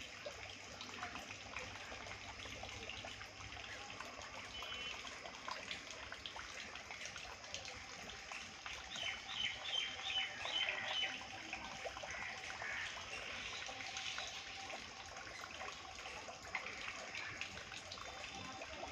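Water trickling steadily from a pipe into a pond. About nine to eleven seconds in, a bird gives a quick run of short repeated chirps.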